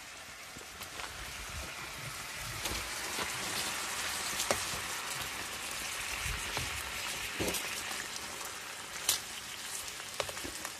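Hamburger patties and crumbled ground meat sizzling in a nonstick skillet on a portable butane camp stove, a steady frying hiss with scattered small pops and crackles. It grows louder about two seconds in.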